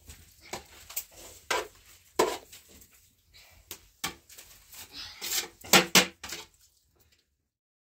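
Irregular knocks and clinks of hard objects being handled, like dishes or wood, with a quick pair of sharp strikes near the end. The sound cuts off abruptly just before the end.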